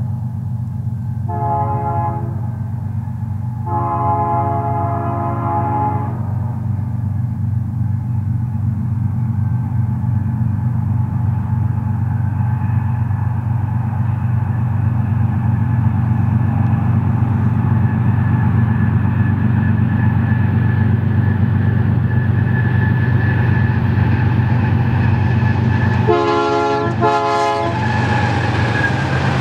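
BNSF GE ES44C4 diesel locomotives sounding their air horn: three blasts in the first six seconds and two more near the end. Under the horn is the steady low rumble of the locomotives and the double-stack train, which grows louder as the train approaches and passes, and a thin high whine builds through the second half.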